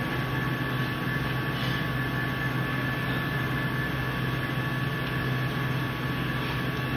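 Steady hum and rush of commercial kitchen machinery, with a low drone and two fixed higher whining tones running evenly throughout.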